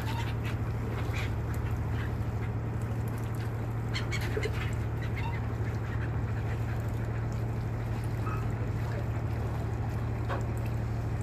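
A flock of gulls calling in short, scattered cries over a steady low hum of the vessel's machinery.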